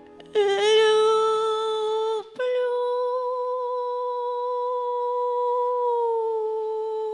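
A woman's amplified solo voice singing two long wordless notes: the first begins about a third of a second in and breaks off after about two seconds, and the second is held steady, dipping slightly near the end. Faint keyboard chords sit under the first note.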